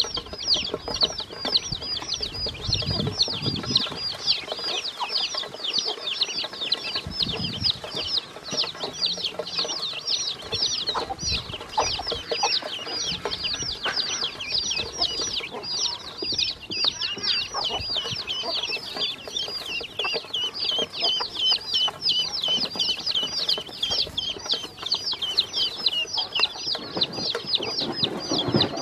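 Baby chicks and ducklings peeping nonstop in chorus, many short, high, downward-sliding peeps a second overlapping.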